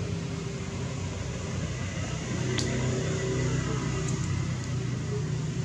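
Steady low hum of a running motor, with one sharp click about two and a half seconds in.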